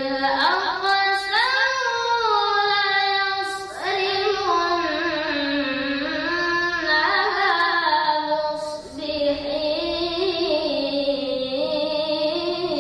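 A boy's voice reciting the Quran in melodic tilawah style, with no accompaniment. He draws out long ornamented notes that wind up and down in pitch, with brief pauses between phrases about four and nine seconds in.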